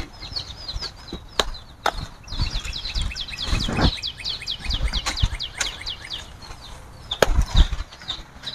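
Leafy Madre de Agua branches rustling, with sharp snaps as leaves and stalks are picked off by hand. In the background a bird calls a fast series of short, high, falling chirps, about six a second, for a few seconds in the middle.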